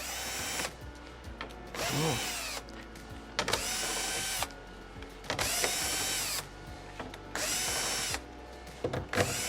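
Electric drill-driver backing out the screws of a TV's plastic back cover in five short runs. Each run spins up, holds and winds down.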